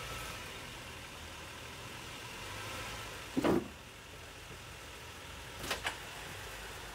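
Honda Accord 3.5-litre V6 idling low and steady. About halfway through there is a short loud thump, and a couple of seconds later two quick sharp clicks.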